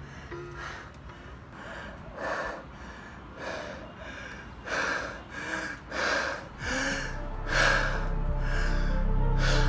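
A man gasping for breath, about seven sharp, breathy gasps in an uneven series, over film music that swells toward the end.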